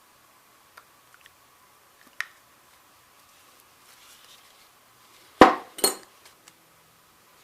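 Steel parts of a powder-actuated tool knocking and clinking as they are handled and fitted together: a light tick about two seconds in, then two sharp metallic clanks about half a second apart.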